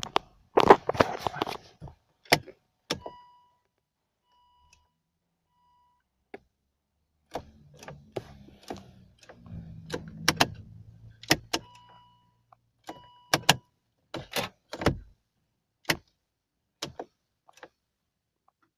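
Keys jangling and a string of clicks from the ignition and relays of a Volvo V50 2.0d diesel, with a steady dashboard beep twice and a low electric hum for a few seconds in the middle. The engine does not crank or start, an electrical fault that cleaning the central electronic module (CEM) cured.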